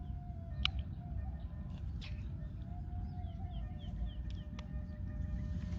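A bird calling a quick run of about five short, falling chirps about halfway through. Behind it are a steady high-pitched hum, a low rumble and a few faint clicks.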